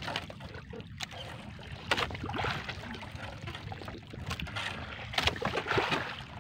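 Water splashing and dripping as a fishing net is hauled by hand over the side of a small outrigger boat, with a few sharp knocks against the hull.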